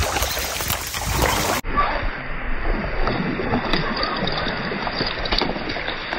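Wind rushing steadily on the microphone, with light splashing on the water as a soft rubber frog lure is worked across the pond surface.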